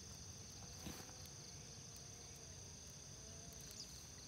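Faint, steady high-pitched insect trilling, with a faint tick about a second in.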